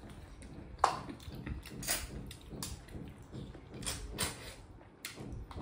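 Eating sounds of people eating with their hands: scattered short clicks and smacks of chewing and fingers picking food, the sharpest about a second in.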